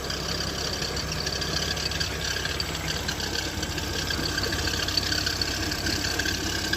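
A 143-hp engine idling steadily just after starting, with a thin, steady high-pitched whistle over the running sound. This is the squeak or whistle on start-up that the owner is concerned about.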